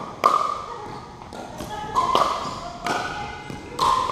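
Pickleball rally: paddles striking a hard plastic pickleball back and forth, sharp hollow pocks about once a second, each ringing briefly and echoing in a gymnasium.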